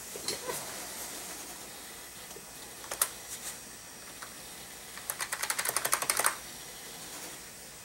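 Computer keyboard keys being pressed: a few single clicks, then a quick run of about a dozen keystrokes near the end. The keyboard is not registering on the old PC.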